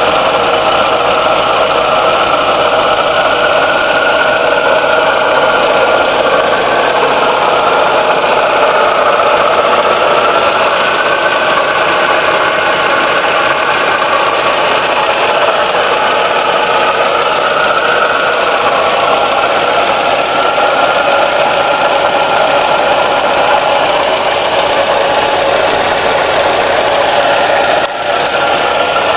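Four-cylinder engine of a 1979 Plymouth Arrow pickup idling steadily, heard close up under the open hood.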